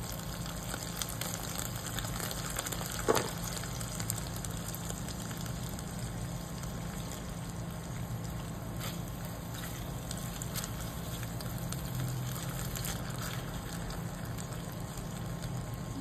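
Red curry paste bubbling and sizzling in oil in a frying pan, with scattered small pops over a steady low hum. A single knock comes about three seconds in.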